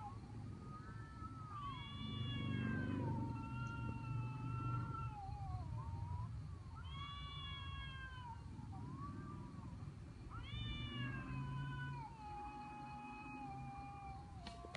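Cats caterwauling in a fight standoff: long, drawn-out yowls that swoop up and down in pitch, one wail running into the next almost without a break.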